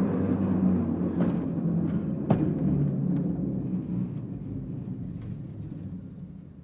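Vintage Amsterdam electric tram 401 passing close by and running away along the track: a low rumble of wheels and running gear with a few sharp clicks from the wheels on the rails, fading out as it goes.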